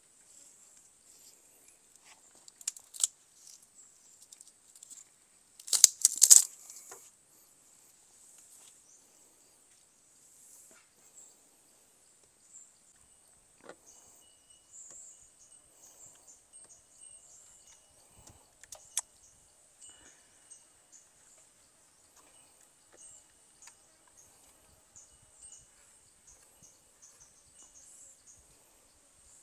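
Steady high-pitched drone of insects, with a few sharp knocks and cracks as bamboo is handled; the loudest is a short burst of clattering cracks about six seconds in.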